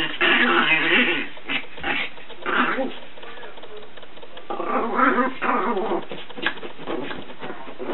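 Chihuahua puppy vocalizing in several short bursts of yips and whines, with a longer burst past the middle.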